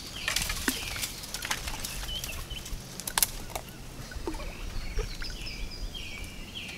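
Branches rustling and twigs snapping, with water sloshing, as a person moves through flooded brush; a bird chirps in short repeated notes in the second half.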